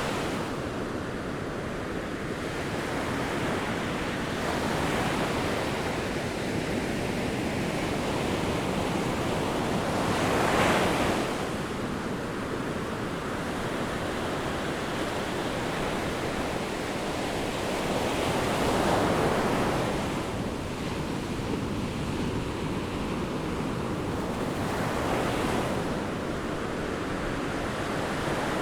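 Ocean surf: a continuous wash of waves with louder breakers swelling up every several seconds, the biggest about ten seconds in and again near nineteen seconds.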